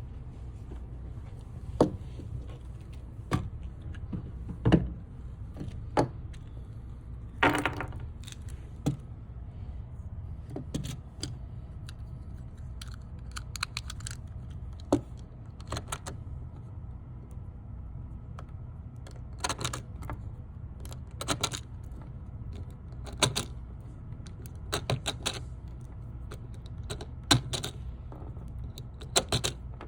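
Irregular sharp clicks and short metallic rattles, some in quick clusters, over a steady low rumble.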